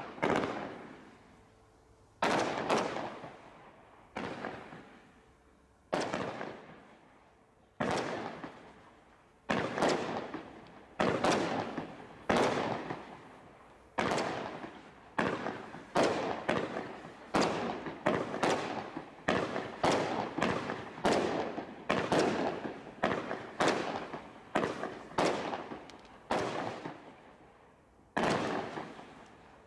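Consumer firework barrage firing a run of shots, each a sharp bang that fades over about a second. The shots come about every two seconds at first, then quicken to more than one a second about ten seconds in. A final single shot comes near the end.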